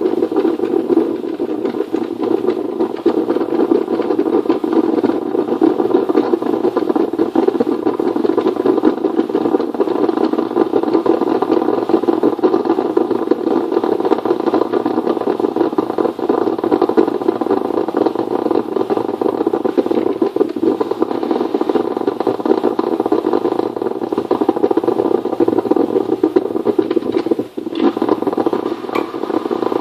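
Drip coffee maker brewing, making a steady noisy sound with a brief dip a couple of seconds before the end.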